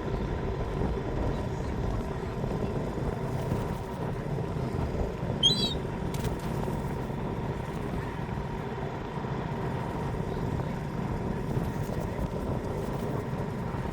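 Steady outdoor background rumble, with one short, high, wavering squeal about halfway through: a seagull's call.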